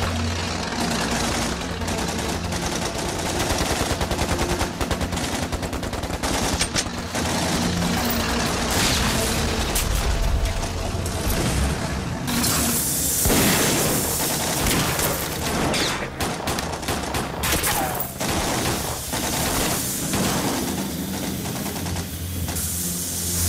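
Battle gunfire: a dense, rapid fusillade of rifle shots and machine-gun bursts.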